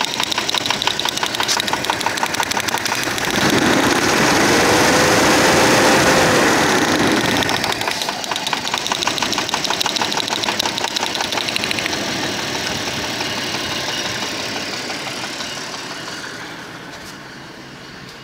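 1996 2.6-litre six-cylinder petrol engine running with one spark plug lead pulled and a rhythmic knock. It is revved up about three seconds in, held a few seconds and let back down, then idles and grows quieter near the end. The knock is a connecting-rod bearing knock, which the mechanic traces to the first cylinder.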